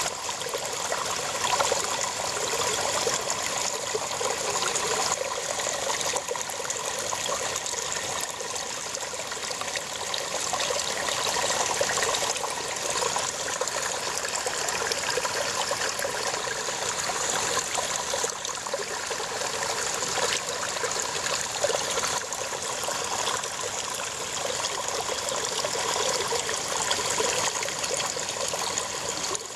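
Shallow brook babbling over rocks: a steady rush of water with trickling and gurgling.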